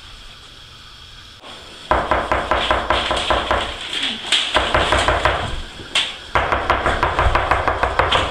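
Rapid, loud banging in three bursts of quick strikes, several a second, starting about two seconds in, with short breaks between bursts.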